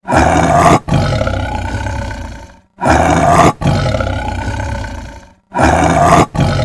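A large animal's roar, repeated three times identically: each a loud opening burst, a brief break, then a longer call that fades away.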